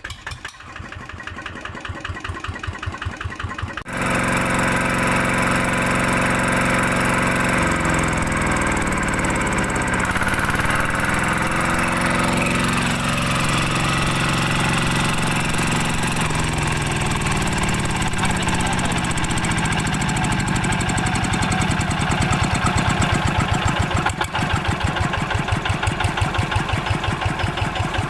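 Kubota diesel engine running, getting suddenly louder about four seconds in. Its speed drops and picks up again between about eight and seventeen seconds in, then it runs steadily.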